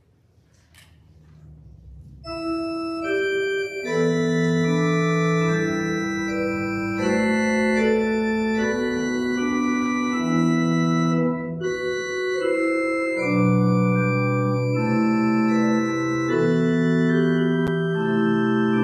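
Church organ playing a slow prelude of sustained, held chords that change step by step. It comes in about two seconds in and swells to full volume within a couple of seconds, opening the worship service.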